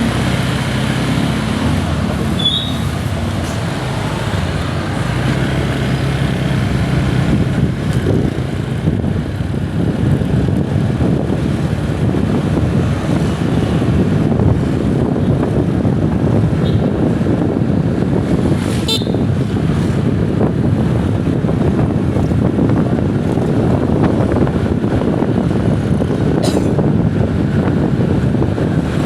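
Steady road traffic noise: a low, continuous rumble of vehicle engines and tyres, with an engine hum in the first several seconds.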